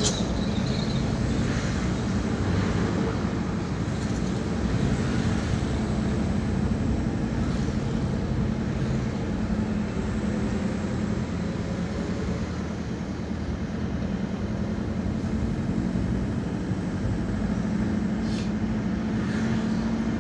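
Steady engine and road noise of a moving car, heard from inside its cabin, with a low drone that holds level.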